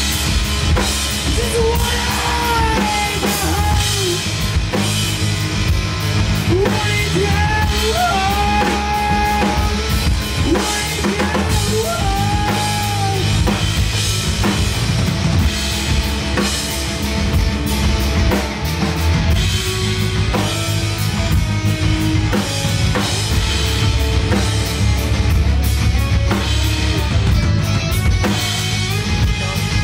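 Live rock band playing an instrumental passage: drum kit, electric bass and electric guitar. A lead line bends in pitch through the first half, over a steady beat.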